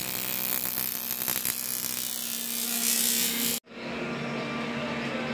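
TIG welder arc buzzing steadily while welding an aluminium radiator with filler rod, in the harsh, even buzz of AC TIG on aluminium. It cuts off abruptly about three and a half seconds in, leaving a quieter steady hum.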